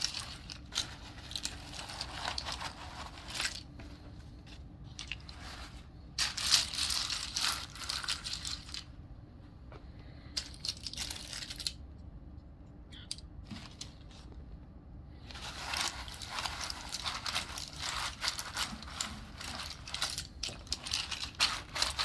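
Keyboard parts being worked on by hand: spells of scratchy rubbing with many small plastic clicks, pausing for several seconds midway, then resuming.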